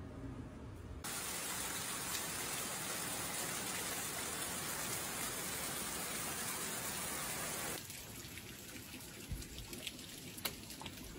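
Heavy rain pouring down in a steady, even hiss, with water sheeting off a roof edge. Near the end it drops to a quieter patter with a few sharp drips and taps.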